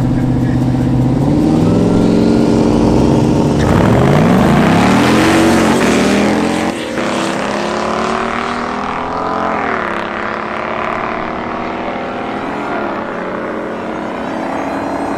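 Swapped Mazda's 5.3-litre LS V8 revving on the drag-strip start line, then launching at full throttle about four seconds in. Its pitch climbs and drops back at each gear change as the car pulls away down the track and fades.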